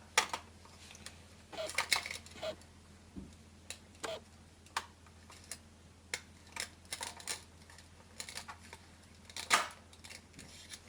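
Toy cutting set in play: toy knives and toy fruit and vegetable pieces tapping and clicking, with scattered sharp knocks, some in quick clusters, as the Velcro-joined pieces are cut apart.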